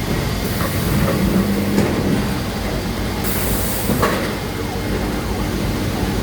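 Automatic CNC panel saw running, a steady machine noise with a few short knocks and a brief hiss about three seconds in.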